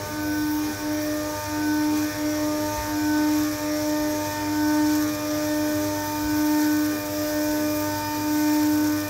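CNC milling machine's end mill cutting a metal part: a steady pitched cutting tone that swells and fades every second or two as the tool works along its path, over a steady hiss.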